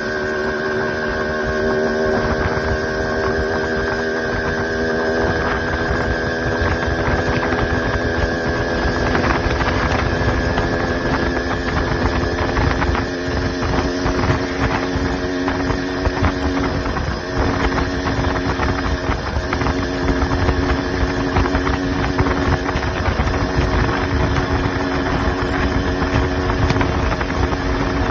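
Gas-electric motorized bicycle running at road speed: a steady motor drone that climbs a little in pitch over the first ten seconds and then holds, with wind rushing on the microphone.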